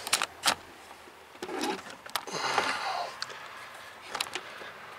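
Scattered sharp clicks and knocks with some rustling: hand tools and clothing being handled while reaching over a car's bare metal floor pan.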